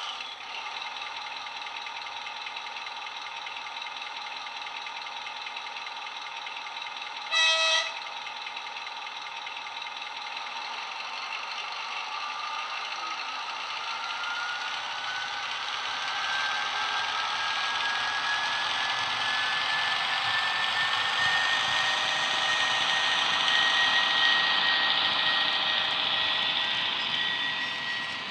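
ESU LokSound 5 sound decoder in a Mehano G2000 model diesel locomotive, played through a single small iPhone speaker. The diesel engine sound runs steadily, with a short horn blast about seven seconds in. From about twelve seconds in the engine note builds with a rising whine as the locomotive pulls away, growing louder, then easing near the end.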